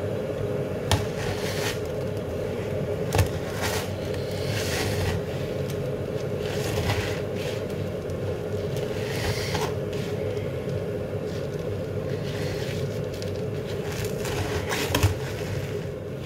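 A hand kneading minced sausage meat into dry stuffing crumbs in a plastic jug: irregular scraping and rustling, with three sharp knocks, over a steady low hum.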